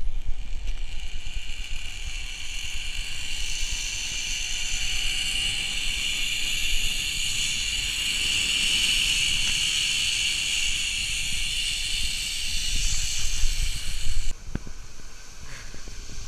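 Zip line trolley pulleys running along the steel cable, a steady high whir that swells toward the middle of the ride and cuts off suddenly near the end as the rider lands. Wind rushes over the helmet-mounted microphone underneath.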